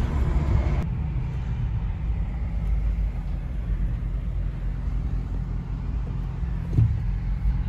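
Steady low road and engine rumble inside a moving van's cabin, with one short knock about seven seconds in.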